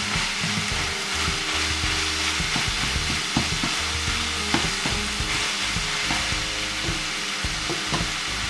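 Minced beef, onions and garlic sizzling in a frying pan on high heat while a spatula stirs them, with irregular scrapes and taps of the spatula against the pan.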